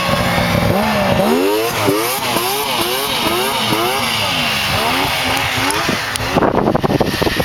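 Snowmobile engines running close by as sleds pass, the engine note rising and falling over and over, about twice a second. Near the end the engine note gives way to a rough, uneven rushing noise.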